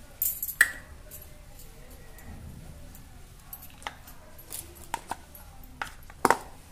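A handful of short, light clicks and taps of a spoon and steel spice containers being handled, spread out over several seconds, the loudest near the end.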